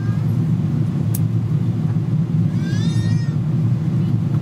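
Steady cabin roar of a Boeing 777-200ER in flight: engine and airflow noise heard inside the passenger cabin. About two and a half seconds in, a brief high, wavering call-like sound rises over it for under a second.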